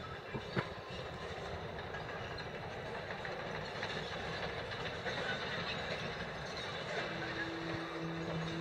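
Demolition excavator working, its diesel engine a steady drone, with two sharp knocks about half a second in. A low steady hum joins near the end.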